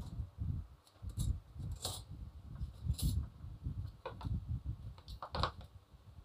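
Thin steel E-I laminations of a small 12 V, 2 A transformer core clicking and scraping against each other as they are pulled out of the core by hand. The clinks come irregularly, over low thumps of handling.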